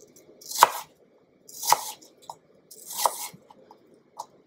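Kitchen knife chopping a peeled apple into small cubes on a wooden cutting board: three strokes about a second apart, then a fainter tap near the end.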